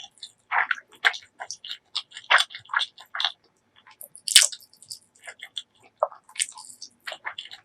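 Close-miked eating sounds: wet chewing, squishing and mouth smacks in short irregular bursts, with one louder sharp bite about four and a half seconds in.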